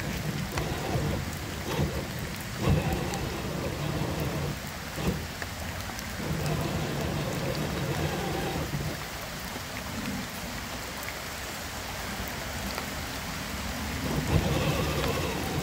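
Steady, rain-like wash of water noise, with a scale RC crawler driving over wet leaves and twigs: a low drivetrain rumble comes and goes in stretches, with a few sharp clicks.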